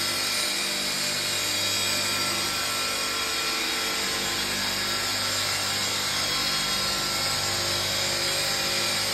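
Granite curbstone chamfering and grinding machine running steadily: a constant motor hum under a loud, even grinding hiss.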